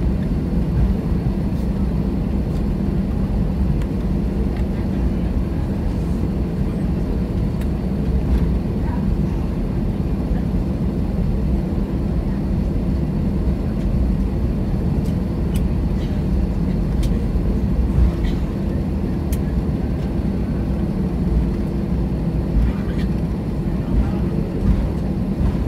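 Steady low rumble of an airliner heard from inside the cabin as it taxis after landing, with a few faint ticks about two-thirds of the way through.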